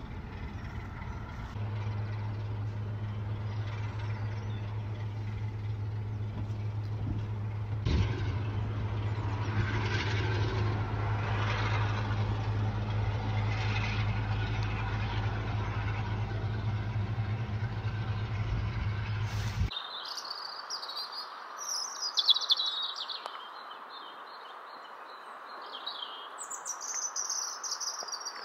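A railway train running: a steady low engine hum over rumble, with one sharp knock about eight seconds in. It cuts off abruptly about two-thirds of the way through and gives way to a European robin singing high, twittering phrases.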